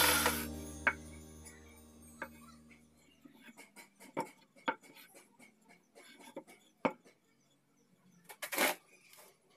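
A steady sound fades out over the first couple of seconds without changing pitch. After it come faint, scattered clicks and light knocks, with a louder cluster of knocks about eight and a half seconds in.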